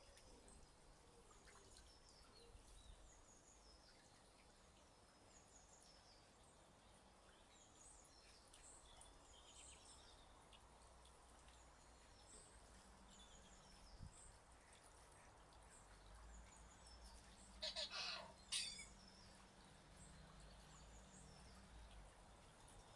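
Faint outdoor birdsong: small birds chirping now and then, high and thin, with two short louder sounds close together near the end.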